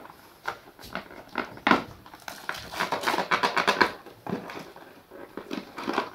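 Toy packaging being unpacked: plastic wrapping crinkling and cardboard being handled and scraped, with a stretch of rapid crackling in the middle.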